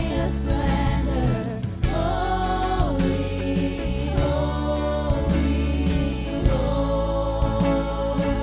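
Live contemporary worship song: female voices singing a melody with long held notes over electric guitar and band accompaniment.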